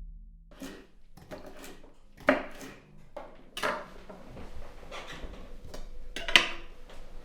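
Irregular light knocks and clatter of objects being handled, about a dozen over several seconds, the loudest about two seconds in and again near the end.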